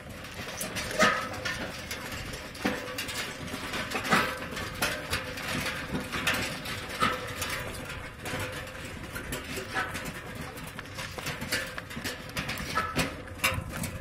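Bullock carts passing close by: bullocks' hooves clopping on the road and the carts' wooden spoked wheels and frames knocking and rattling, in irregular sharp knocks.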